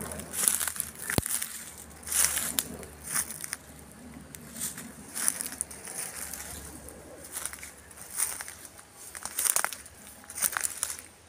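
Footsteps crunching through dry leaf litter and twigs, in irregular steps roughly once a second.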